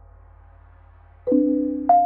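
Soft outro music: a few held, bell-like tones, then two struck notes that ring on, about one and a quarter seconds in and again just before the end.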